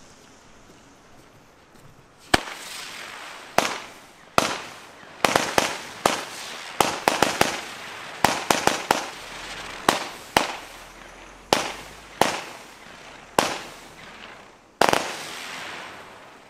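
Firework battery firing a volley of shots: about twenty sharp launch bangs at irregular spacing, each trailed by a hiss as the stars with sparkling tails climb. It starts about two seconds in and ends with one last large bang near the end.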